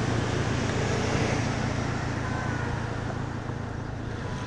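Steady low rumble of vehicle noise with an even hiss above it.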